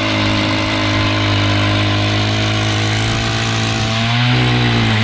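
Small gas engine of an ice auger running steadily at high speed, its pitch rising briefly about four seconds in as it revs.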